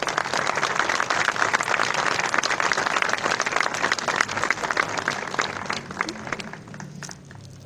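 Audience applauding: a dense patter of many hands clapping that thins out near the end.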